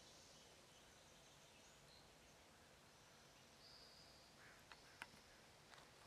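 Near silence with a faint hiss, broken by short, thin, high-pitched calls of distant small birds and a few soft clicks near the end.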